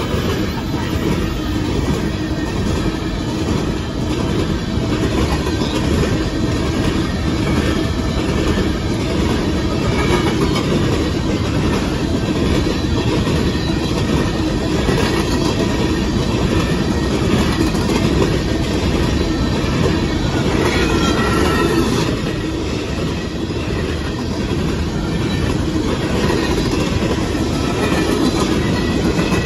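Empty coal cars of a freight train rolling past close by, a loud, steady rumble of wheels on the rails with clickety-clack. A brief wheel squeal comes about twenty seconds in.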